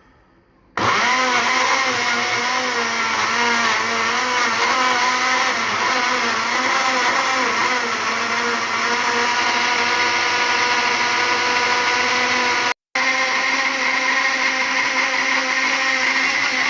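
Electric countertop blender switched on about a second in and running steadily. Its motor pitch wavers for the first few seconds as the contents churn, then settles; the sound breaks off for an instant near the end.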